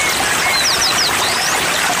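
Small songbirds chirping and twittering in quick, sweeping whistled notes, with a fast cluster of notes about halfway through, over a steady rush of flowing water.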